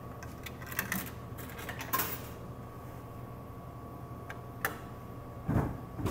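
Soda vending machine humming steadily, with a few sharp clicks from its money and selection mechanism as it is worked. A louder thud comes near the end.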